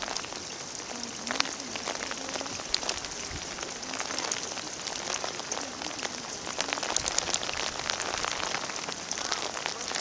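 Hot spring water running and splashing over stepped mineral terraces: a steady watery hiss with many small scattered pops and drips.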